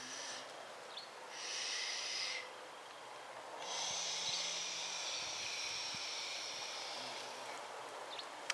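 A woman's loud, breathy exhalations through an open mouth: a short breath about a second in, then a longer one lasting about three seconds.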